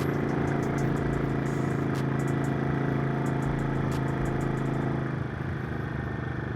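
Motorcycle engine running at a steady speed under way. The engine note eases off and dips slightly about five seconds in.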